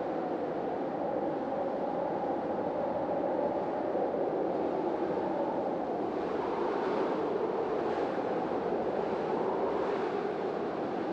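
Hurricane-force storm wind blowing in a continuous deep rush, with gusts swelling and hissing higher about two thirds of the way in and again near the end.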